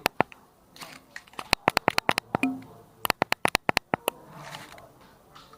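Sharp clicks in quick runs of six to eight, several a second, coming in three or four bursts with short gaps between them.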